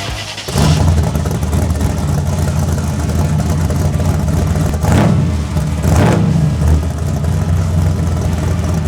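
Cammed hot-rod engine through a full 3-inch exhaust, coming in suddenly about half a second in and idling loud and low with a choppy beat, blipped twice near the middle.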